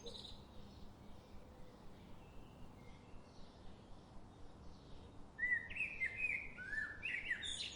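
Birds chirping: faint scattered calls at first, then about five seconds in a quick series of short, falling chirps comes in louder.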